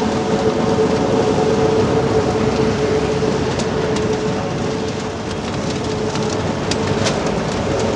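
Heavy construction machinery at work: a diesel engine running with a steady whine that fades about halfway through and returns near the end, and a few sharp clanks.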